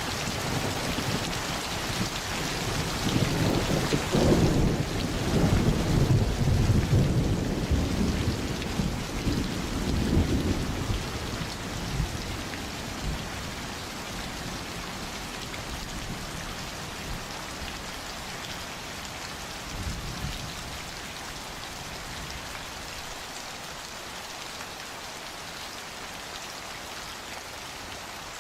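Steady rain falling, with a long roll of thunder rumbling low through the first third and a shorter, fainter rumble about two-thirds of the way in.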